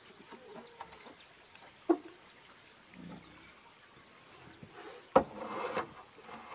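A corrugated roofing sheet being handled and laid onto a small wooden roof frame. There is a sharp knock about two seconds in, then a louder knock and a short scraping slide a little after five seconds as the sheet is set down.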